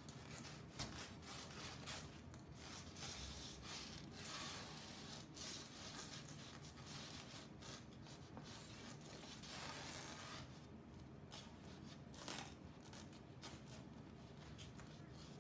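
Faint rustling and scraping as a cut-out shadow puppet on a twisted wire rod is moved and rubbed against a paper screen, with a couple of soft clicks.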